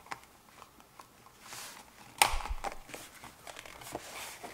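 A tape measure's case being handled and closed up: light scraping and rustling, with one sharp click about two seconds in.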